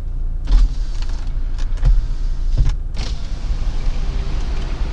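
Inside a stopped car: a steady low rumble from the vehicle, with several sharp clicks and knocks over the first three seconds.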